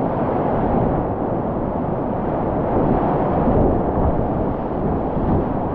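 Whitewater rapids rushing loudly around a kayak, a steady, dull roar mixed with wind and water buffeting on the action camera's microphone.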